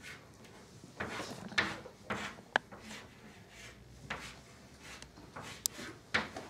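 Chalk on a blackboard: a string of short scraping strokes, with a couple of sharp taps, as grid lines and small circles are drawn.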